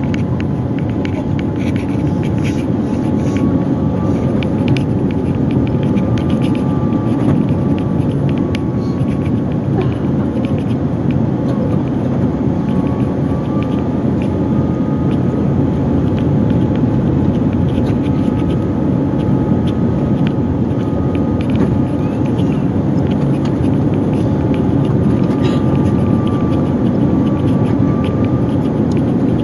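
Cabin noise inside a Boeing 787-9 descending on approach: a steady low rumble of airflow and engines, with a steady tone above it and a fainter whine that slides up and down in pitch a few times, and scattered light rattles.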